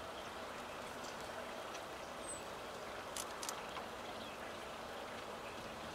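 Steady rushing background noise, with a few sharp clicks a little over three seconds in: a Eurasian siskin cracking sunflower seed husks. A single brief, high, thin bird note comes about two seconds in.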